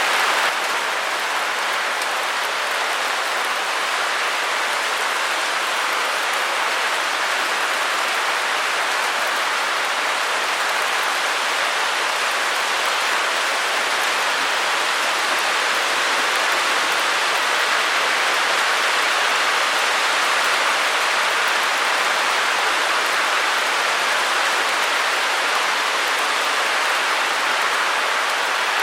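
Steady white-noise hiss, even and unbroken, weighted toward the middle and upper range with little bass.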